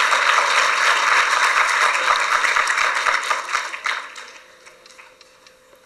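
Audience applauding, which dies away about four seconds in.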